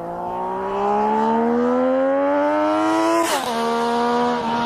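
Motorcycle engine accelerating, its pitch rising steadily for about three seconds, then dropping sharply as it shifts up a gear and holding steady after.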